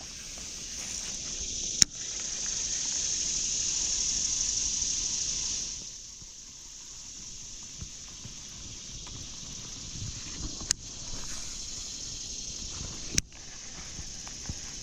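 A steady, high-pitched insect drone, the kind cicadas make in summer. It swells loud from about two seconds in and eases off at about six seconds. A few sharp clicks cut through it: one near two seconds, and two more in the last few seconds.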